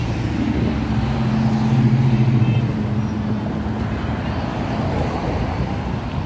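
Classic cars driving past one after another, their engines giving a steady low hum that is loudest about two seconds in, then an even rumble of engines and tyres on the road.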